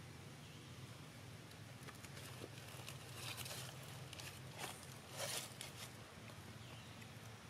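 Faint outdoor ambience with a steady low hum and a few brief rustling scrapes, the clearest about three and about five seconds in.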